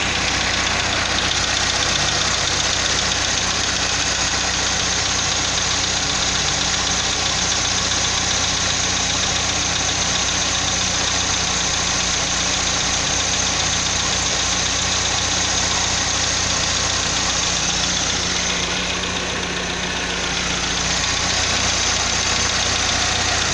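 Chevrolet Astra 2.0 8-valve engine idling steadily soon after its first cold start of the day, with a lifter-like tapping that is dying down. The owner wonders whether it comes from the hydraulic lifters, the camshaft or sludge in the engine.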